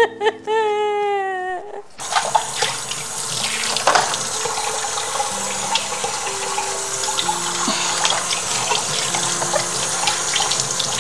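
A woman sobbing and wailing over held music tones. About two seconds in it cuts off suddenly to a kitchen tap running steadily into a sink, with occasional clinks.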